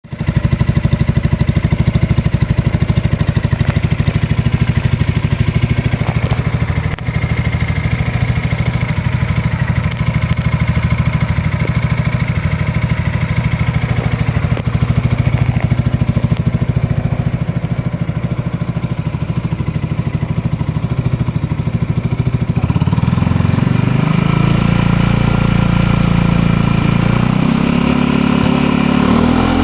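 Yamaha motorcycle engine idling through an Akrapovic aftermarket exhaust with a steady, fast-pulsing note. About three quarters of the way through the note shifts, and near the end it is blipped up and down in short revs.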